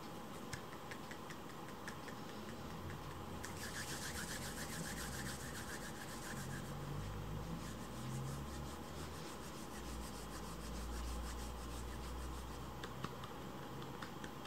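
A rapid scratching rasp, a fast run of small ticks, strongest from about three and a half to six and a half seconds in. A low rumble comes in underneath in the second half.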